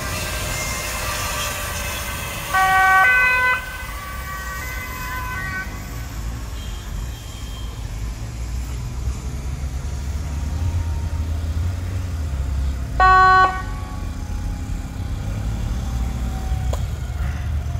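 Short blasts of a Dutch police car's two-tone siren: about a second long with one drop between two pitches near the start, and a single brief blast about two-thirds through, over a steady low rumble.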